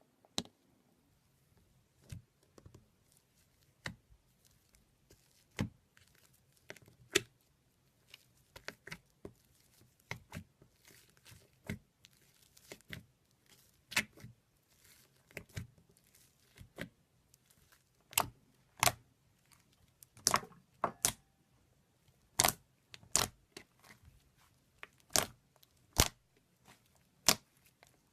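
Slime being squeezed and stretched by hand, giving a series of sharp pops and clicks as air pockets burst. The pops come irregularly, about one or two a second, and grow louder and more frequent in the second half.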